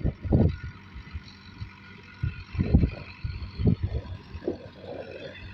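Farm tractor engine running steadily, overlaid by irregular low rumbles of wind buffeting the microphone.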